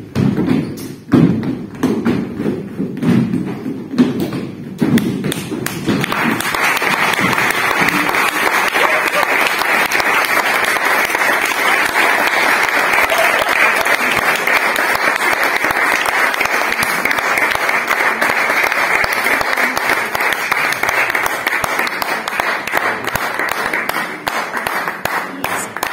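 Irregular thumps and taps for the first few seconds, then, about six seconds in, an audience breaks into steady applause that holds for about twenty seconds and fades near the end.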